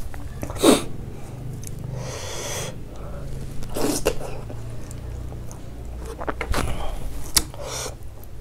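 Close-miked eating sounds of a person eating dhido by hand: wet mouth smacks and chewing, a breathy hiss about two seconds in, and a few sharp lip-smack clicks near the end.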